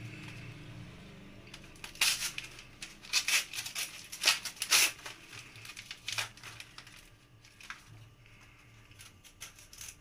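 Gift wrapping paper being torn and crumpled in a series of short rips, followed by softer rustling as a cardboard box is handled and its tape picked open.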